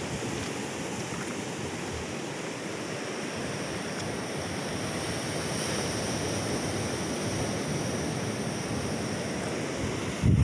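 Steady wash of ocean surf breaking on the reef, with wind on the microphone; a gust buffets the microphone just before the end.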